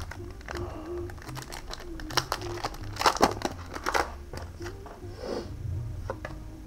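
Foil Pokémon Crown Zenith booster pack wrapper crinkling as it is handled and opened, with a cluster of sharp crackles between about two and four seconds in.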